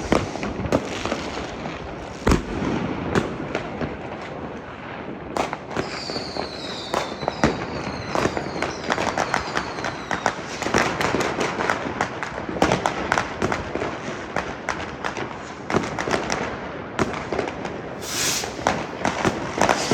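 New Year's fireworks and firecrackers going off in a dense, continuous barrage of bangs and crackles. A cluster of falling whistles comes about six to ten seconds in, and a loud hiss near the end.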